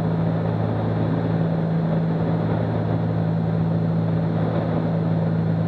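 Cockpit drone of a Cessna 310's twin six-cylinder piston engines in flight, mixed with airflow noise. It is a steady, low hum that does not change.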